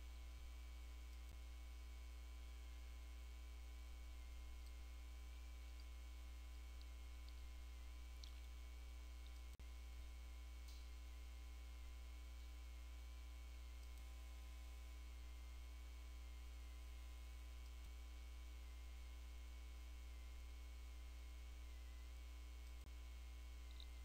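Near silence with a steady low electrical hum and a faint, slightly wavering high whine above it.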